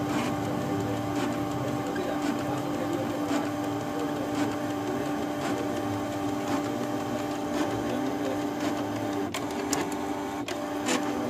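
Canon G-series ink-tank printer running its ink-charge cycle, drawing ink through its tubes to the print head. A steady mechanical hum with a light click about once a second.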